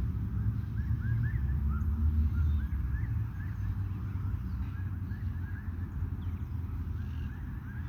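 Birds chirping over and over in short rising notes, with wind rumbling on the microphone.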